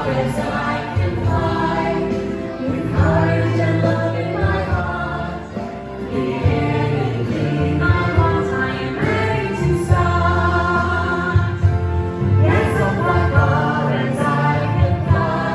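A group of voices singing a song, as a choir, over instrumental accompaniment with a steady bass.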